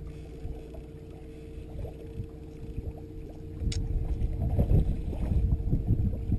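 Bow-mounted electric trolling motor humming steadily on a bass boat, under a low, uneven rumble that grows louder about halfway through, with one sharp click near the middle.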